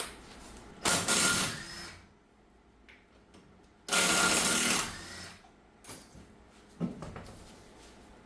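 Power tool running in two short bursts of about a second each, about one second and four seconds in.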